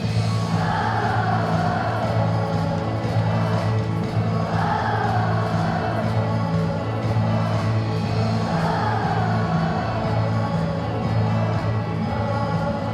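Music with singing voices over a steady bass line, the sung phrases swelling about every four seconds.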